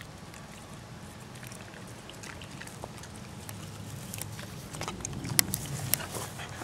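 Corgis chewing and tearing grass close to the microphone: faint crunching and clicks over a steady low hum, growing busier in the last couple of seconds, with two sharp clicks about five and a half seconds in.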